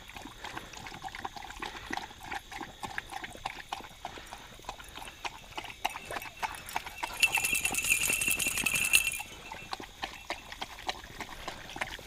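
Several beagles lapping water from a plastic tub: a steady run of quick, wet clicks. A louder high-pitched buzzing sound comes in for about two seconds in the second half.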